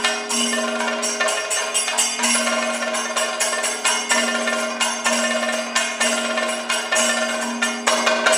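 Kathakali percussion: chenda and maddalam drums played in fast, dense strokes, over steady held ringing tones.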